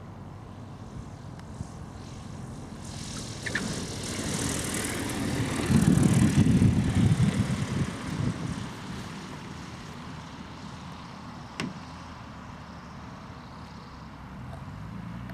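Motor glider landing and rolling out on the runway. The rumble of its wheels and engine swells to its loudest as it passes, about six to eight seconds in, then fades as it rolls away. A single sharp click near the end.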